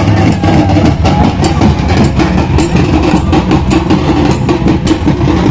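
Loud festival drumming, with many irregular strikes over a dense, rumbling din.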